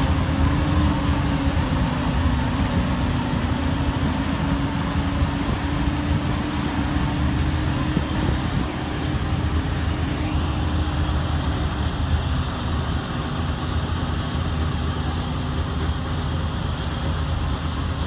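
Corn harvesting machinery and tractor running steadily under load, a continuous heavy engine rumble with a held whining hum. About ten seconds in, the higher hiss eases and the hum fades a little.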